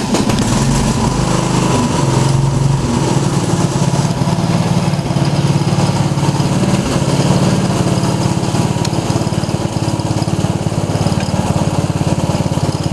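15 hp OHV Briggs & Stratton engine on a 1990 Craftsman riding mower running steadily just after being started, given a little throttle.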